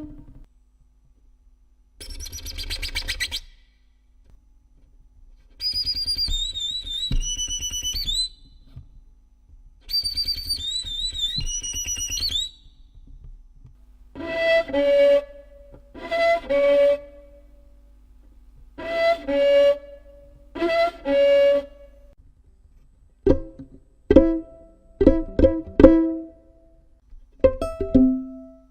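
Violin played to imitate animal and insect sounds. First come scratchy, noisy bowed passages with high squeaking glides, then four repeated two-note calls, then a run of short, sharp strokes near the end.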